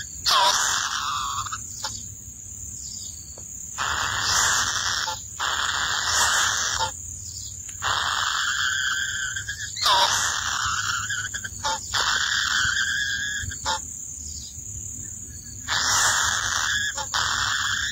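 Kingfisher nestlings in a tree-hollow nest giving harsh, raspy calls in bursts of one to two seconds, with short pauses between.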